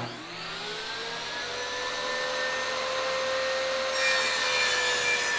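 TACKLIFE MTS01A 10-inch, 15-amp jobsite table saw switched on, its blade whine rising in pitch as it spins up and then running steadily. About four seconds in the sound gets louder and rougher as the blade starts cutting into a sheet of OSB.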